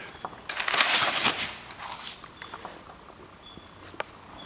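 Old photographs and papers rustling and crinkling as they are handled and shuffled on a debris-strewn floor, loudest between about half a second and two seconds in, then a few faint ticks.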